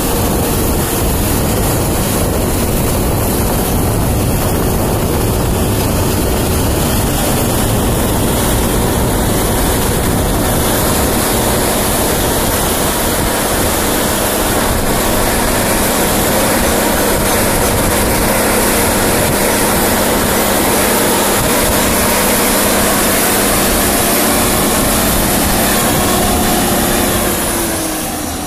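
The diesel engine of a 710 EVO articulated four-wheel-drive tractor running steadily under load while pulling a six-tine paratill through the soil, a loud, even drone. Near the end its pitch falls and it gets quieter.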